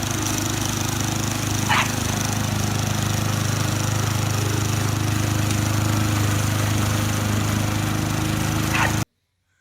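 A loud, steady motor drone, with a short high squeak about two seconds in and another near the end; the drone cuts off abruptly about nine seconds in.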